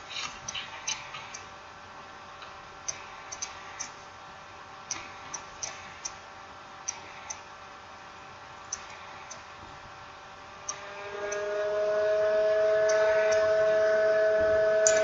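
Scattered, irregular small clicks and taps from handling the parts of a smartphone being reassembled. From about eleven seconds in, a steady humming tone swells up and holds, louder than the clicks.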